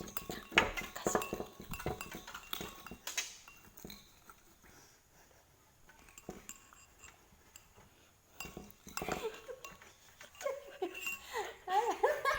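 A stirrer clinking and scraping against a container as glue is stirred, a quick run of short clicks that fades after about four seconds. Near the end, voices and giggling.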